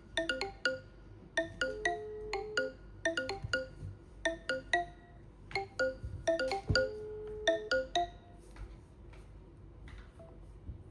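Smartphone ringtone: a melody of short, quickly fading bright notes with one held note in each phrase, the phrase playing twice before it stops about eight seconds in. Faint ticks follow.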